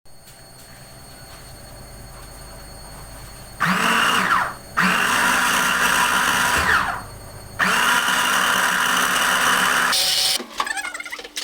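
Electric food processor running in three bursts of about one, two and three seconds, with short pauses between them, its motor pitch rising at the start of each run as it grinds boiled dried figs and garlic with cod liver oil. A few clicks and knocks follow as it stops near the end.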